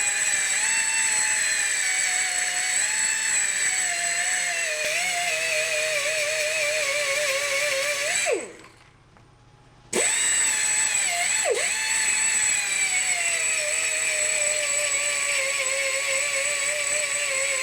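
Small die grinder running at high speed, grinding off the heads of steel roller-chain pins, its whine wavering and sagging as it bears on the metal. About eight seconds in it winds down and stops for about a second and a half, then starts again and runs until it winds down at the end.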